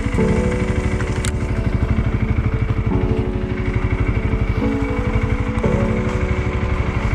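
Honda CRF300L's single-cylinder four-stroke engine running steadily under way, with a fast regular exhaust pulse. Its tone shifts abruptly a few times, and there is one sharp click about a second in.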